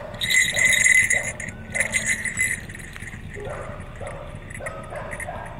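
Small brass jingle bells on the horns of a latex jester mask jingling as the head shakes, in two bursts over the first two and a half seconds, followed by softer, short repeated sounds.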